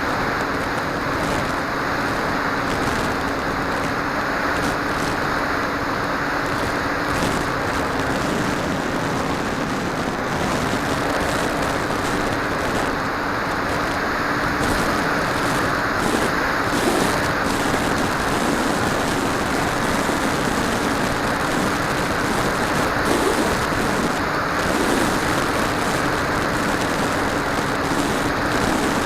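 FPV model aircraft in flight: a steady noisy rush with a constant hum underneath.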